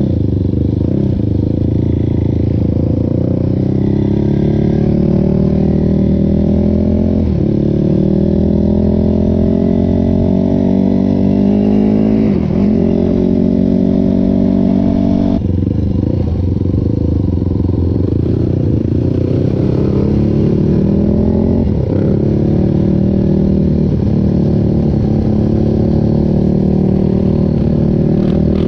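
A sport quad's engine running under hard acceleration. The revs climb steadily and drop back sharply a few times as the rider shifts up through the gears.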